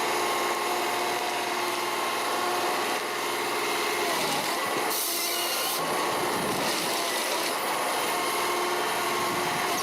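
John Deere 1270E forestry harvester working: a steady engine and hydraulic drone with several held tones, and a brief high hiss about five seconds in.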